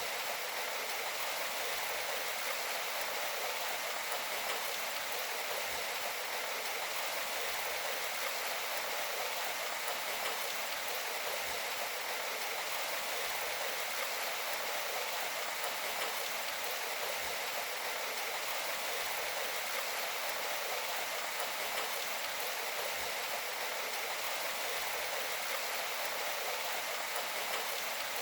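Steady rain falling: an even hiss that does not change.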